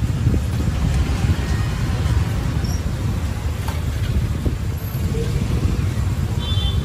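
Street ambience: a steady low rumble of road traffic, with faint voices in the background.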